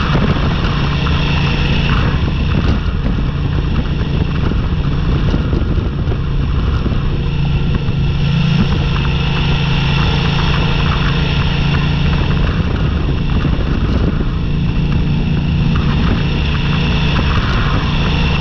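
Motorcycle engine running steadily while riding on a gravel road, with tyre noise and many small ticks from the gravel, and wind over the microphone.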